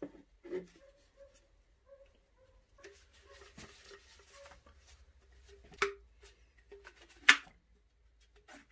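Small clicks and rustles of hand-handled parts as the fuel filter is pushed onto the fuel hose of a Stihl MS 170 chainsaw's tank, with two sharper clicks about six and seven seconds in.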